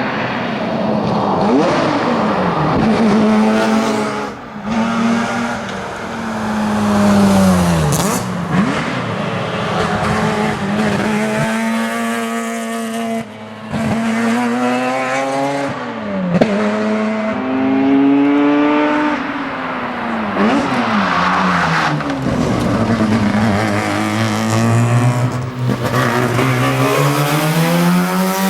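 Mazda RX-7 rotary engine at full racing effort, revs climbing and falling again and again with quick gear changes and throttle lifts.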